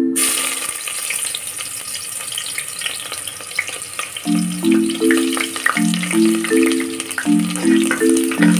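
Sliced onion dropped into hot oil in a pressure cooker, bursting at once into a steady sizzle with small crackles as it begins to fry. Light background music with mallet-percussion notes comes in about four seconds in.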